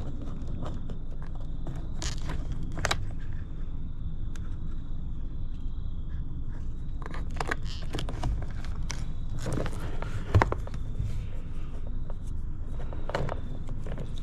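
Scattered clicks, knocks and scrapes of a 12-volt USB and cigarette-lighter socket panel being handled and test-fitted on an ATV, with one sharper knock about ten seconds in. A faint steady high tone runs underneath.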